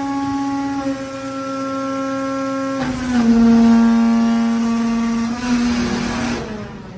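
Green-sand flaskless molding machine running with a steady machine hum, which drops slightly in pitch and grows louder about three seconds in as the cycle moves on.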